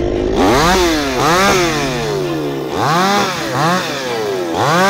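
Gasoline chainsaw revved in quick repeated bursts, its engine pitch rising and falling about six times.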